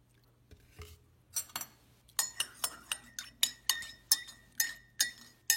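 A spoon stirring a cup of coffee, clinking against the inside of the cup: a few light taps, then from about two seconds in a steady run of clinks, roughly four a second, each leaving a short ring.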